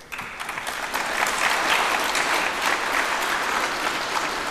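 Audience applauding, starting at once, fullest in the middle and fading near the end.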